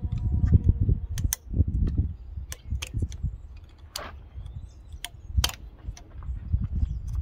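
Scattered sharp plastic clicks and taps as wiring-harness connectors on the engine are unclipped with a small screwdriver, the loudest about four and five and a half seconds in. An uneven low rumble sits underneath.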